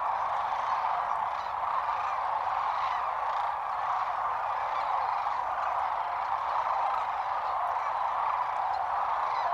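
A large flock of sandhill cranes calling together, a dense steady chorus with no break.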